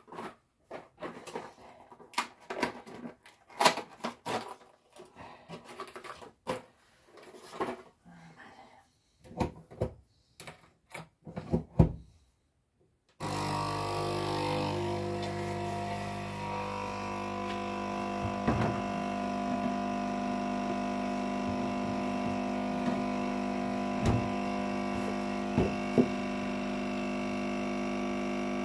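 Knocks and clicks of kitchen items being handled. About halfway through, an electric kitchen appliance switches on suddenly and runs with a steady mechanical hum, with a few light clicks over it.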